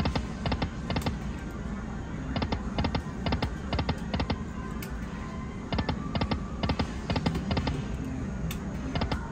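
Aristocrat Lightning Link Moon Race video slot machine making bursts of rapid electronic clicking ticks as its reels spin and stop, with short pauses between bursts. Casino background music plays underneath.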